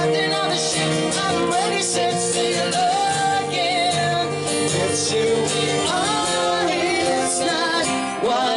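A woman singing to two acoustic guitars.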